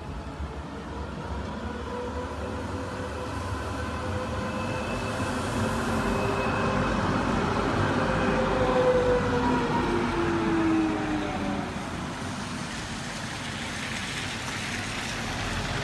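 Electric street tram passing on wet rails, its motor whine swelling to the loudest point about nine seconds in, then sliding down in pitch as it moves away, over a steady hiss of the wet street.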